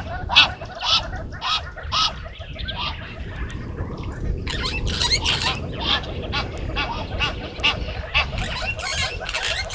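A chorus of quick, repeated honking and chattering animal calls that thins briefly a few seconds in, then picks up again, over a steady low rumble.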